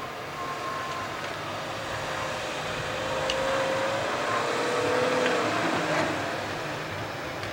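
A car engine running under load as it tows a cabin cruiser on its trailer up a boat ramp, swelling a little in the middle.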